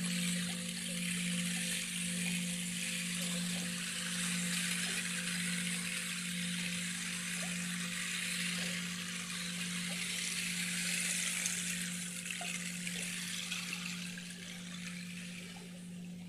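Running water trickling and splashing steadily over a low, steady hum that wobbles slowly in loudness; the water fades somewhat near the end.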